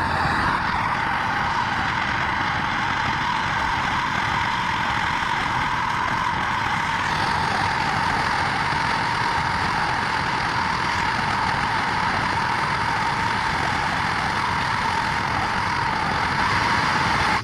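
Gas torch flame running with a steady roar, heating a two-stroke exhaust expansion chamber that is pressurised with air to about 48 psi so its dents push back out. The torch shuts off suddenly at the end.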